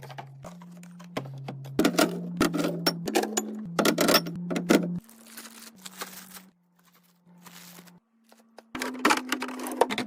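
Quick clicks, taps and clatters of packaged food and drink containers being handled and set into a fridge during restocking, over a low background-music bass line that steps in pitch. The handling goes nearly quiet for about two seconds past the middle, then picks up again.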